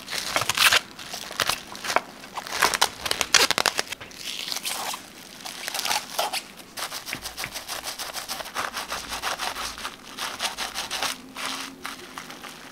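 Plastic cling wrap crinkling and crackling as hands press and wrap it tightly around a large tortilla roll. The crinkling is loudest in the first few seconds, then goes on softer.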